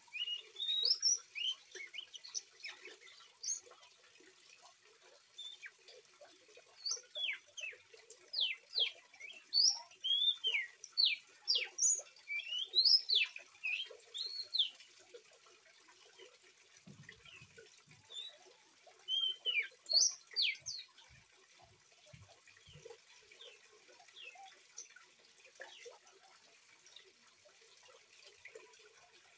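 Juvenile oriental magpie-robin singing in quick runs of short, sharp whistles and chirps. The notes come in a long busy bout through the first half and a shorter one about two-thirds through. A faint trickle of running water sits behind them.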